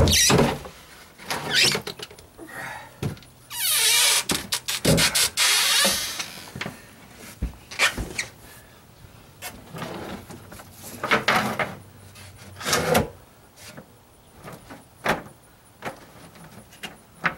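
A wooden deck board being slid and set into an opening in a boat's deck: wood scraping and knocking against the deck and hull, with a long scrape about four seconds in and more scraping later, amid scattered sharp knocks.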